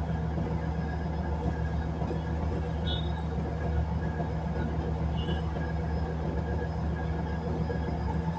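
Batara Kresna diesel railbus running, heard from inside the cabin: a steady low engine drone with running noise. Two brief faint high chirps come through about three and five seconds in.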